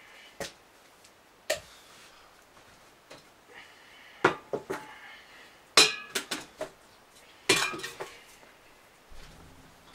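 Empty aluminium beer cans clinking and clattering as they are handled and knocked together, in short irregular bursts that are loudest about four, six and seven and a half seconds in.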